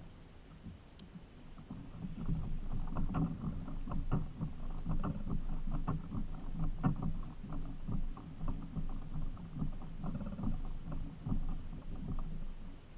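Fishing reel being cranked in while the rod is bent under load: dense, irregular clicking and knocking that starts about two seconds in and stops just before the end.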